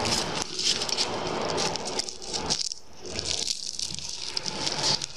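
Crisp baked filo-pastry börek crackling and crunching as it is torn apart by hand: a dense run of fine crackles in two bouts, with a brief pause partway through.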